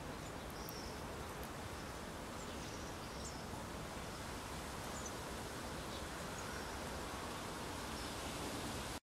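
Steady outdoor background noise with faint, short, high bird chirps scattered through it. A click at the very start, and the sound cuts off abruptly near the end.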